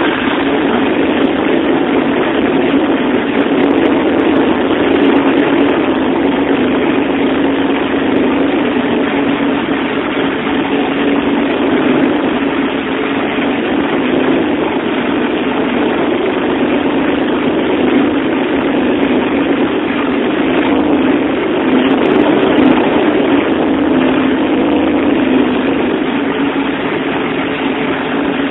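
Turbocharged Alfa Romeo GTV V6 engine idling steadily, on one of its first runs after being newly built.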